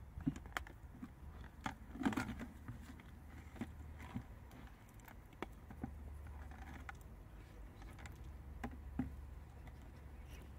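Giant freshwater mussels being taken out of a plastic bucket and set down on wet concrete: scattered clacks and knocks of shell against shell and against the concrete, a few louder ones in the first couple of seconds and one near the end.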